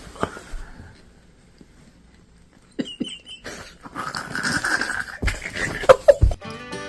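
A dog making short vocal sounds, with a few loud sharp calls close together near the end.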